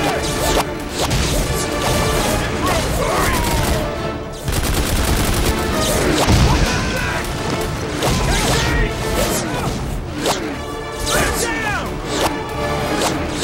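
Film battle sound mix: repeated staff-weapon energy blasts and gunfire with impacts, over a music score.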